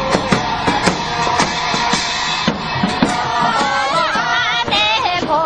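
Parade music: a steady drumbeat of about two strokes a second, with a group of voices starting to sing a folk tune over it a little past halfway.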